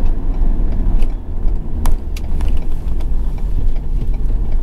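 Pickup truck driving on a town road: a steady low rumble of engine and road noise, with a few faint ticks.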